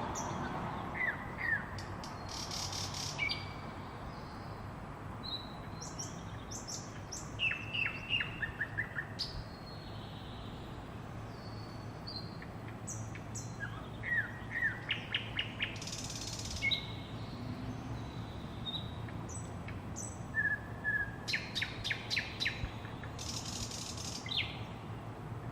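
Songbirds singing and chirping in short repeated phrases, some as quick runs of notes falling in pitch, over a steady low hum of city traffic.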